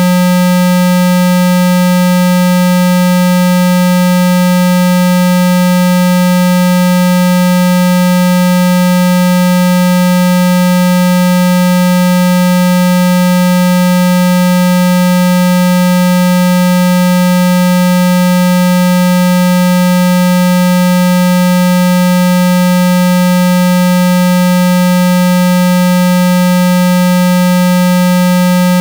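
A steady 195 Hz synthesized tone, the low buzzing water-eject sound played through a phone speaker to vibrate trapped water out. It holds one pitch at a constant level, with fainter higher overtones above it.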